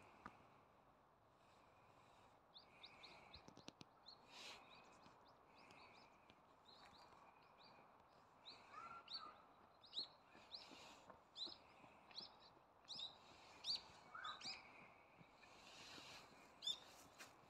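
Small birds chirping faintly: a run of short, high, rising chirps, one or two a second, with a couple of lower calls mixed in.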